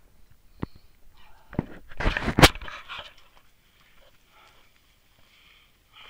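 Footsteps and the rustle and crackle of grass and twigs as someone walks through undergrowth. A few sharp snaps come first, then a loud burst of crackling and brushing about two seconds in, then quieter steps.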